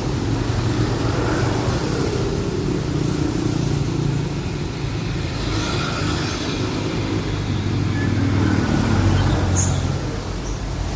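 A motor vehicle engine running steadily, its pitch wavering a little.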